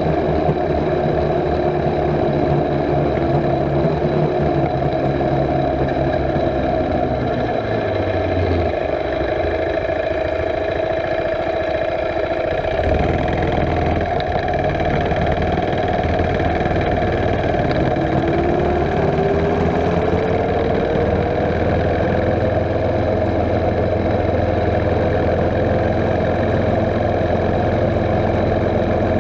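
Mini bike's small single-cylinder engine running as the bike rides along. Its note drops about halfway through, then climbs steadily as the bike speeds up again and holds higher.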